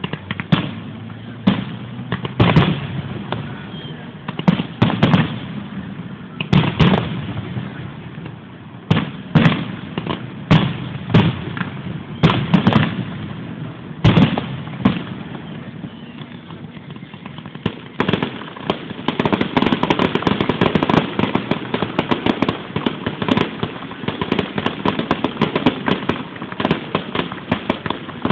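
Aerial fireworks bursting: a string of sharp, irregular booms, then past the middle a dense, continuous crackling from many small pops at once.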